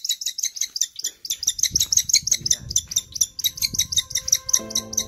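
Young hawk, held in the hand, calling in a rapid run of high, sharp chirps, several a second without a break. Background music comes in near the end.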